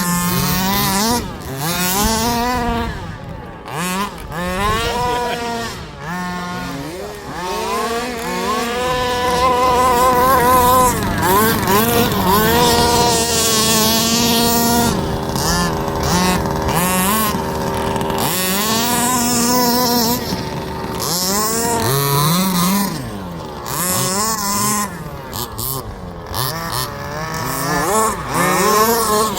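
Two-stroke petrol engines of 1/5-scale RC buggies being driven hard, revving up and down again and again, the pitch rising and falling every second or two with engines overlapping at times.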